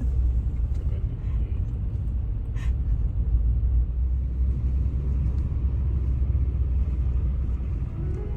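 Steady low rumble of a car driving on a snowy, slippery road, with one short tick about two and a half seconds in.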